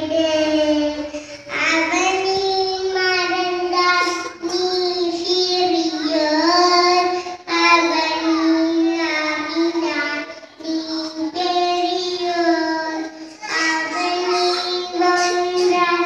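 A young girl singing solo into a microphone, holding long, fairly steady notes in phrases with short breaths between them.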